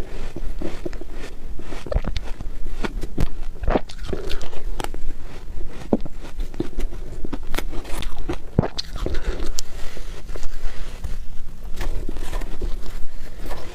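Close-miked bites into soft freezer frost and shaved ice: a quick, irregular run of crunches.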